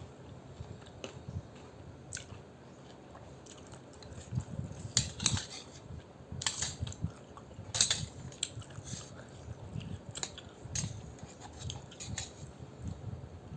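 Close-miked eating of noodle soup: a person chewing, with several short sharp mouth noises through the middle of the stretch.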